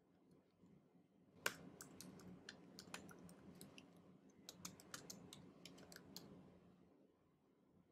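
Computer keyboard typing: a run of quiet key clicks that starts about a second and a half in with one sharper click and stops a little over a second before the end.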